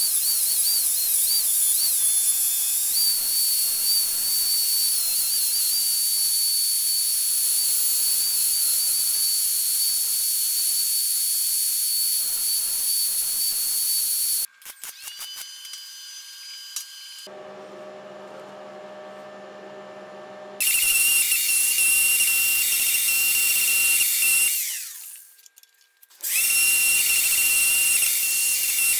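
Angle grinder grinding a steel part clamped in a vise: a high whine over the hiss of the disc on metal. It runs in separate passes. Near the middle there is a quieter stretch with a low hum, then grinding resumes, winds down with a falling whine, and starts again shortly before the end.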